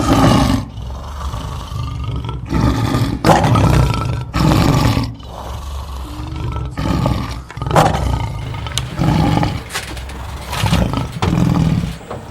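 Lion roaring in a full bout. Several long, loud roars come first, then a run of shorter, softer roars that die away shortly before the end.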